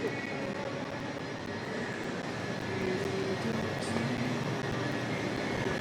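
Steady road and engine noise of a moving car, with no clear events standing out.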